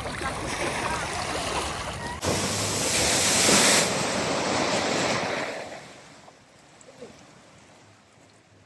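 Flood water rushing and splashing as a vehicle drives through a flooded ford. A loud rush starts suddenly about two seconds in, then fades away over the next three seconds.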